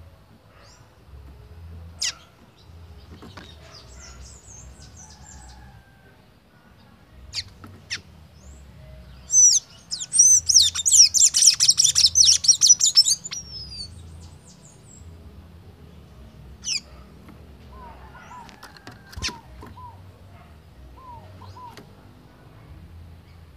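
Sanhaço tanager calling with a few sharp single chirps, then breaking into a loud, rapid, high twittering song for about four seconds in the middle. More scattered chirps follow, with soft, short falling whistles near the end.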